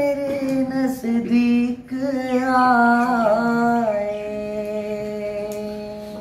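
A young man singing a naat solo, without instruments, drawing out long, slowly falling melodic notes. About four seconds in he settles on one long held note that gradually fades.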